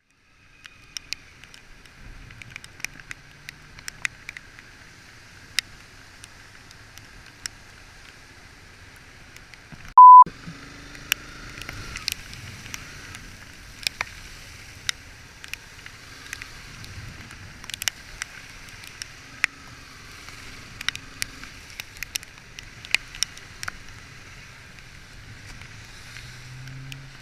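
Motorcycle ride in heavy rain, recorded by a bike-mounted camera on a Honda CBR250R: a steady hiss of wet road spray and wind, frequent sharp taps of raindrops hitting the camera housing, and the bike's small engine faint underneath. A single loud, high, steady beep sounds briefly about ten seconds in.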